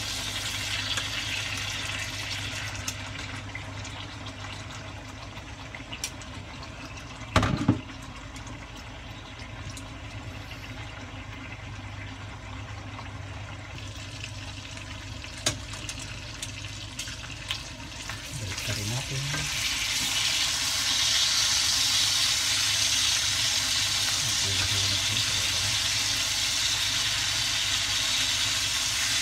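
Pork steaks frying in their marinade in a frying pan, a steady sizzle that swells and grows louder about two-thirds of the way through as the liquid cooks down. A sharp knock a quarter of the way in, and a few small clicks of metal tongs in the pan.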